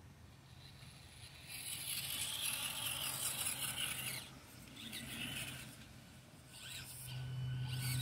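Axial SCX24 Deadbolt 1/24-scale RC crawler driving over rock: its small electric motor and gears whine in bursts, with tyres scrabbling on stone. The longest burst runs from about one and a half seconds to four seconds in, with shorter ones around five seconds and near the end.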